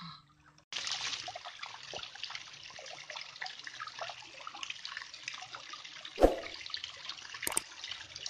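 Water splashing and trickling, a steady spatter of drops. A single loud thump comes about six seconds in, and a couple of short clicks follow near the end.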